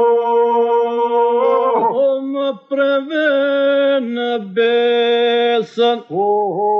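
Albanian Lab iso-polyphonic singing by a men's group: the group holds a steady drone while higher solo voices bend and dip through ornamented phrases, breaking off briefly twice.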